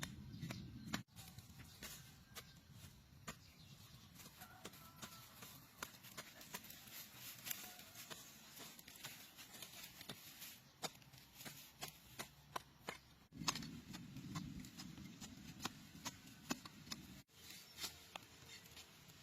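Faint, irregular light clicks and taps, many in quick succession, with a low rumble during the first second and again for a few seconds about two-thirds of the way through.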